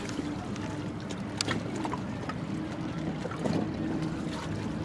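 Steady low rumble of a boat out on the lake, with water and wind noise over the microphone and a few faint clicks.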